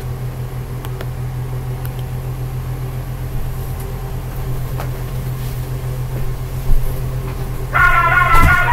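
A steady low electrical or mechanical hum with a few faint ticks. Music starts near the end and is louder than the hum.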